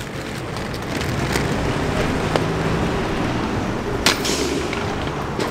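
Inline skate wheels rolling on concrete, a steady rumble, with a single sharp clack about four seconds in.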